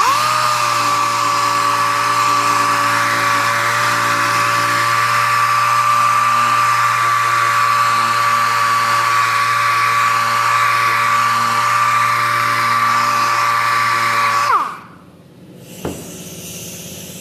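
Pneumatic random orbital sander running at speed with a steady high whine as it sands the sealer coat on wood before varnishing; about fifteen seconds in it is shut off and winds down with a falling pitch.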